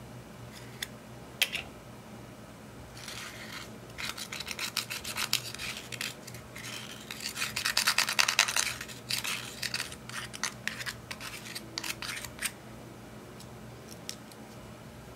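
Pressed eyeshadow being scraped and crumbled out of its compact pan with a small tool: a rapid dry scratching, loudest about eight seconds in. A couple of sharp clicks come just before the scraping starts.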